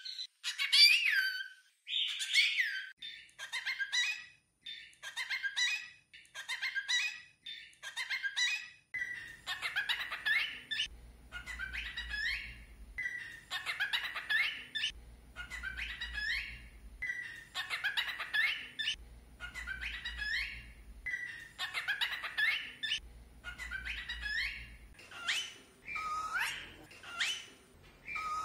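Cockatiel talking in its high, whistly voice, repeating short mimicked phrases such as "bebezinho". The phrases come about once a second, each with bending pitch.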